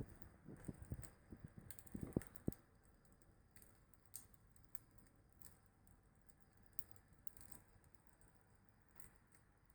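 Wood fire crackling: irregular sharp pops and clicks, busier with a few duller knocks in the first two or three seconds, then sparse.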